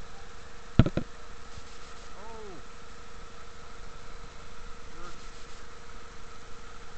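Small waterfall splashing into a pool, an even rushing noise with a steady hum over it. Two sharp knocks come about a second in, and a brief call that rises and falls follows near the two-second mark.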